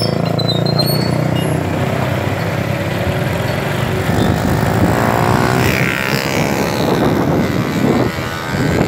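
Steady engine and road noise of moving traffic, heard from a vehicle on the move, with an engine note that rises and falls from about halfway through.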